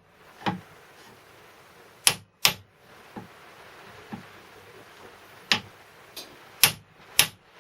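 A hammer striking a drift to drive a crankshaft ball bearing into its housing in the crankcase, in about six sharp blows, some in quick pairs, with a few lighter taps between them. The bearing is a tight push fit and is being knocked home.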